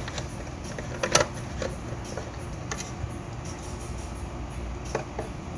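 A few scattered small clicks and taps of screws being taken out of a car amplifier's metal end panel and handled, over a steady low background hum.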